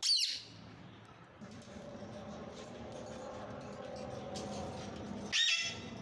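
Indian ringneck parakeet squawking twice: a short high call at the start that slides down in pitch, and another high call about five seconds later. A steady low hum sits under the gap between them.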